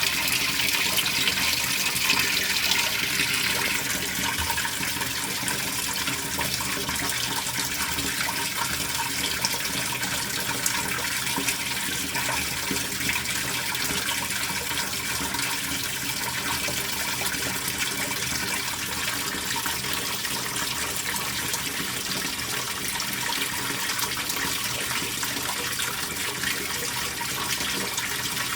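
Speed Queen top-loading washing machine running mid-cycle, with a steady rush of water in the tub and a faint low hum.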